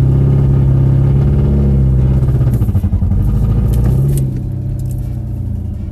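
Car engine revved up quickly and held at a steady high pitch, then dropping to a lower, quieter steady note about four seconds in.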